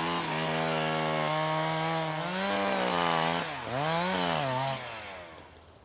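Chainsaw running at high revs, held steady for about two seconds, then revved up and down twice before dying away near the end.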